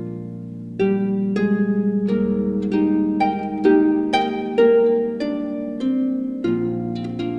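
Background music: a melody of plucked string notes, about two a second, over held low notes.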